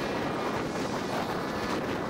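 Steady rushing wind and road noise from a vehicle travelling along a highway, with no distinct engine tone or other events standing out.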